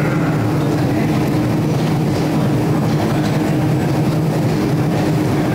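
Steady mechanical hum with a low drone of fixed pitch and an even noisy hiss over it.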